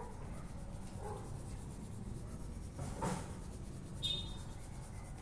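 Faint scratching and rubbing of a felt-tip marker on poster paper, in a few soft strokes, with a short high squeak about four seconds in.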